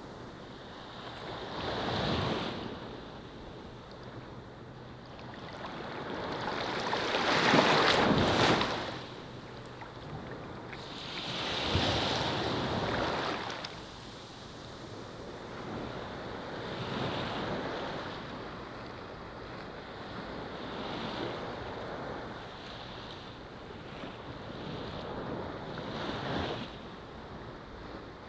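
Ocean surf: waves breaking and washing up a beach, swelling and falling every four or five seconds, the biggest surge about eight seconds in.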